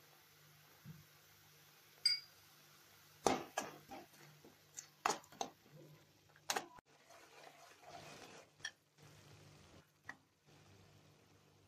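A perforated metal ladle scraping and clinking against a metal kadai as a thick masala paste is stirred, in irregular strokes with one ringing ping about two seconds in. A low steady hum runs underneath.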